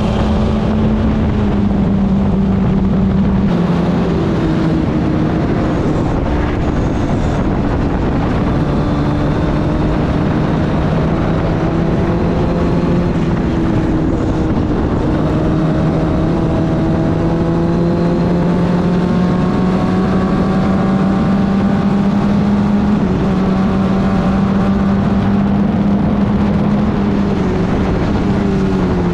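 Club Ford (Formula Ford) race car engine at racing speed. Its note climbs and falls, with several sudden drops in pitch as gears change, over a constant rush of wind and road noise.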